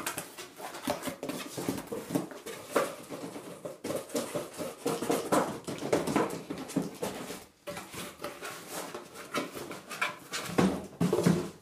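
Cardboard shipping box being opened and emptied by hand: flaps bent back and the inner box scraped against the cardboard as it is pulled out, in an irregular run of rustling and scraping. A short pitched sound, like a brief whine or voice, comes near the end.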